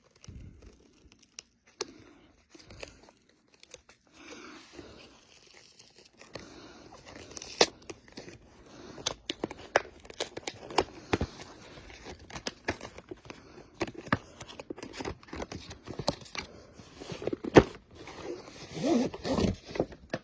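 Product packaging being opened and handled: crinkling and tearing with many small clicks and knocks, sparse at first and busier from about six seconds in.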